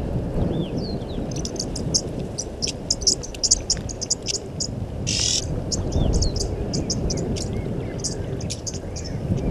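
Outdoor bush ambience: rapid, irregular high-pitched clicking chirps of insects mixed with short arching bird chirps. A brief buzzy call comes about five seconds in. Underneath runs a steady low rumble.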